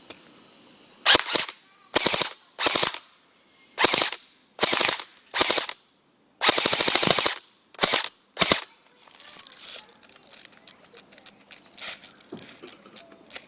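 KingArms airsoft M4 rifle firing about nine short full-auto bursts, the longest lasting about a second. Faint scattered clicking and rattling follows near the end.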